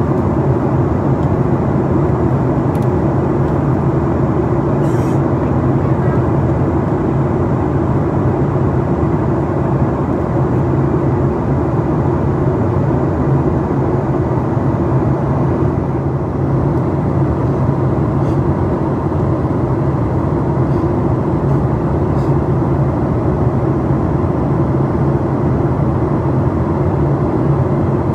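Steady cabin noise inside a Boeing 737 MAX 8 in descent: the drone of its CFM LEAP-1B engines and the rush of air past the fuselage, an even, unbroken sound with a low hum.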